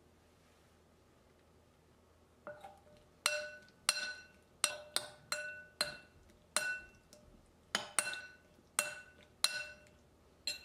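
Metal spoon mixing salad in a glass bowl, striking the bowl's side a dozen or so times so that the glass rings with a clear clink each time. The clinks start about two and a half seconds in and come at an uneven pace of one or two a second.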